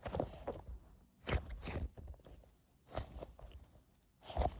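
Hands squeezing and handling a large foam egg squishy close to the microphone: four short rustling squeezes, roughly a second and a half apart.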